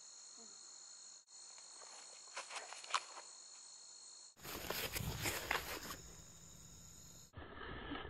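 Crickets chirring steadily in a high pitch, with a few faint scuffs of feet on grass. About four seconds in the sound jumps to louder rustling and handling noise, which turns duller near the end.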